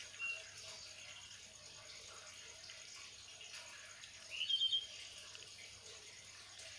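Faint steady background hiss with brief high-pitched chirps: a short one just after the start and a louder run of quick chirps about four and a half seconds in.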